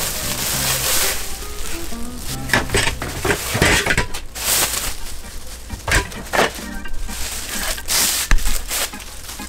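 Plastic wrap crinkling and rustling as it is pulled off the metal bars of an over-the-sink dish rack, with a few sharp knocks as the bars are handled and set down. Background music plays underneath.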